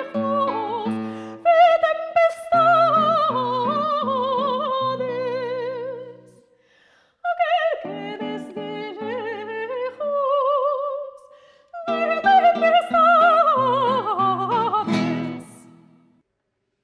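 A soprano singing a Spanish seguidilla bolera in classical style, holding notes with vibrato, over a plucked classical guitar accompaniment. The music pauses briefly twice and comes to an end about a second before the close.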